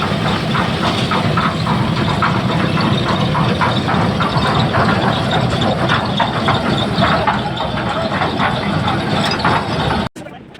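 Engine-driven machinery running steadily with a fast, irregular rattling clatter over a low hum, cutting off abruptly near the end.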